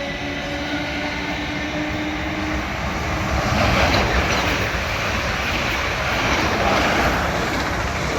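South Western Railway electric train passing through the station at speed: a rush of wheel and air noise that builds about three seconds in and stays loud. A faint steady whine fades out early on.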